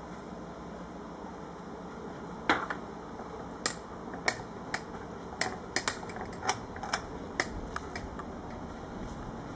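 About a dozen sharp, irregular clicks and taps over a steady background hiss, starting about two and a half seconds in and stopping a couple of seconds before the end.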